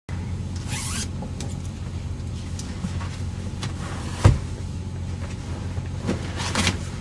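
Car running, heard from inside the cabin: a steady low hum with a few knocks and rustles, the loudest a sharp thump about four seconds in.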